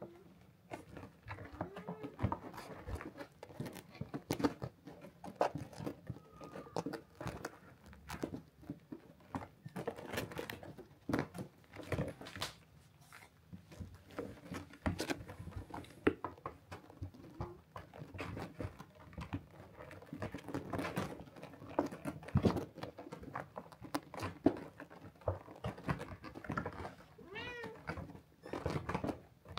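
Kitten pawing and clambering on a felt cat cave, with many small scratching and rustling noises, and a few short high meows near the end.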